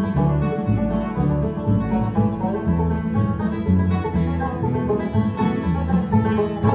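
Instrumental background music: a quick tune of many short notes over a steady rhythm, with no voice.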